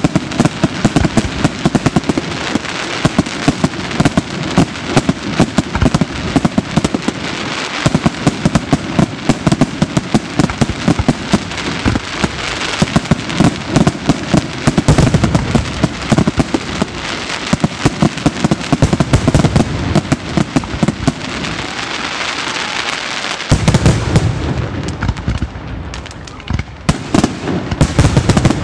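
Aerial fireworks display in a dense barrage, shells bursting in rapid, near-continuous bangs. About 21 seconds in the bangs thin out for a couple of seconds under a crackle of crackling stars, then the rapid bangs resume.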